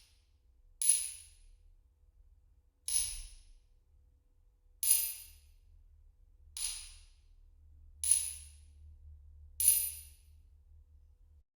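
Hammer hits, six separate strikes about one and a half to two seconds apart, each with a bright, high ring that dies away quickly.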